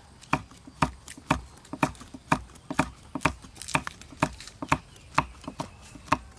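Chef's knife slicing red chillies on a thick wooden chopping block: sharp knocks of the blade on the wood, about two a second, with lighter taps in between.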